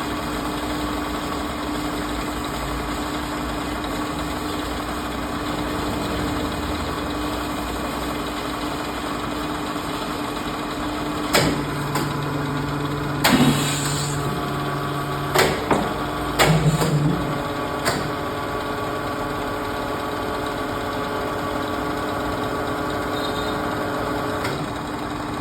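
Amada HA250 bandsaw machine running with a steady hum. A little past the middle, a series of sharp knocks comes over about six seconds, then the steady hum carries on.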